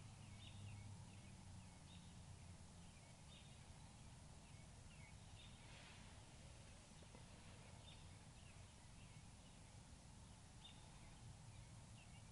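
Near silence: faint, short bird chirps about once a second over a low steady rumble.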